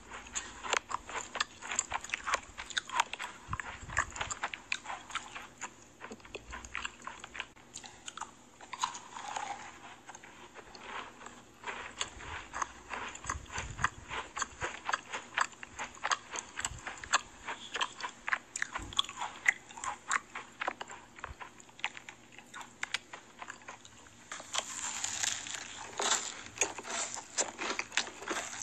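Close-miked chewing of crunchy sweets: a dense run of crisp crackles and wet mouth clicks.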